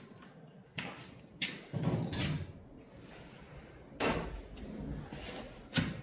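A few sharp knocks and clunks, about four, with rumbling handling noise between them, as things are moved and set down while searching on a garage floor.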